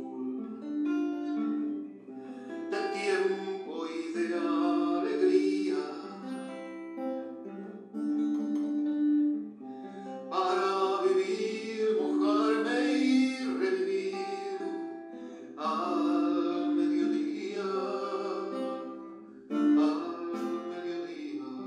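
A man singing a song in Spanish, accompanying himself on a classical guitar with plucked chords; the sung phrases are broken by short pauses.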